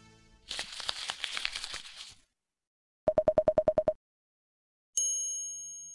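Sound effects for an animated logo intro: a crackling, sparkling rush for about a second and a half, then a fast run of about a dozen short beeps, then a single high ring near the end that fades away.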